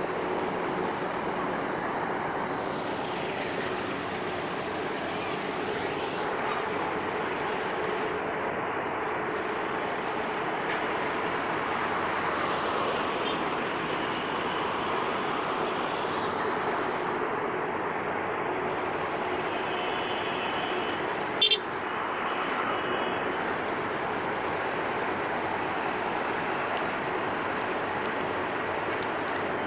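Steady city road-traffic noise with a constant hum, and one sharp click about two-thirds of the way through.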